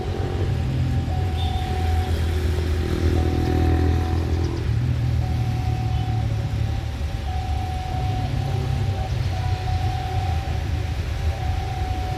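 Low, steady rumble of a distant CC 206 diesel-electric locomotive, with a thin steady high tone that breaks off and returns every second or so.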